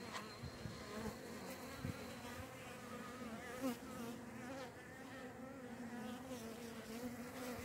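Honeybees buzzing around an opened hive: a steady hum whose pitch wavers as individual bees fly past. A few faint knocks come in the first two seconds.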